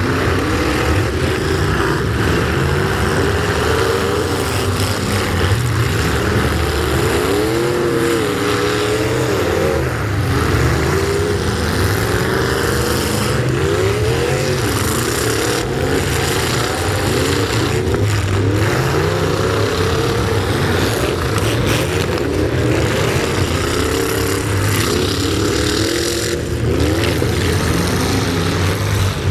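Several truck engines running hard at once, their pitches rising and falling over and over as they rev and shift, over a steady low rumble.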